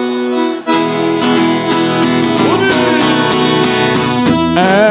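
Instrumental passage of a live sertanejo song: acoustic guitar strumming with the band. A held chord breaks off about half a second in, and the strummed rhythm carries on from there.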